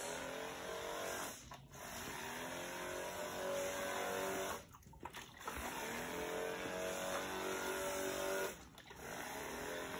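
Handheld disinfectant sprayer's motor whining while it sprays, in several runs of two to three seconds with short breaks between them. The pitch rises each time it starts again.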